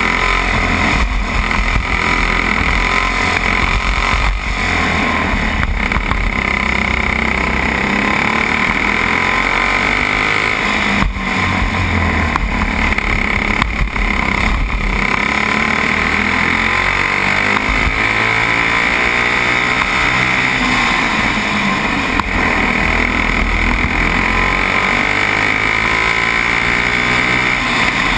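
Racing kart engine running hard on a lap, its pitch rising and falling as the driver accelerates out of and lifts into corners, heard from an onboard camera on the kart with a steady rushing noise underneath.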